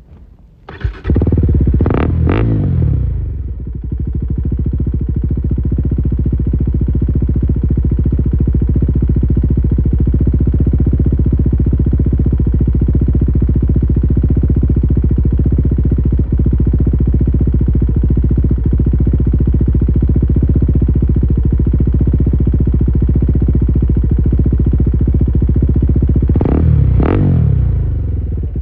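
KTM 390 Adventure's single-cylinder engine through a de-catted custom exhaust, loud. It comes in about a second in and is blipped twice quickly, then idles steadily, with one more quick blip of the throttle near the end.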